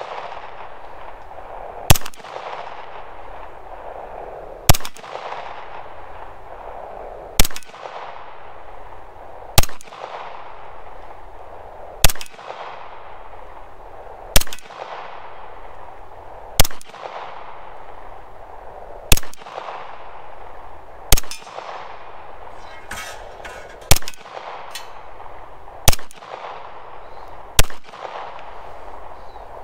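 Glock 17 9mm pistol firing single shots at a slow, steady pace, about one every two seconds, twelve shots in all, each followed by a trailing echo.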